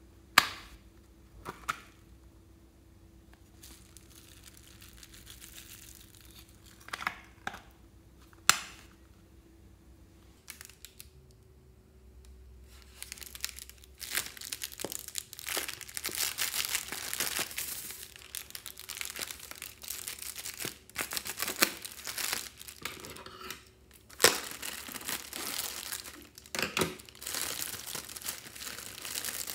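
A few sharp clicks of handling in the first half. Then, from about halfway, a foil (Mylar) balloon crinkles and crumples densely as it is squashed by hand.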